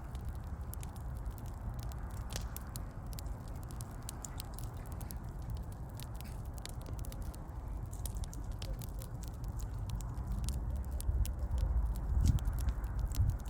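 Wood fire crackling: frequent sharp pops and snaps over a low steady rumble, with a louder low thump near the end.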